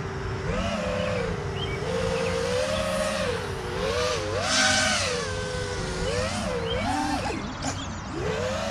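Brushless motors and propellers of a 4S freestyle FPV quadcopter, a TBS Source One build, whining in flight, the pitch rising and falling with each throttle punch. There is a short burst of hiss about halfway through.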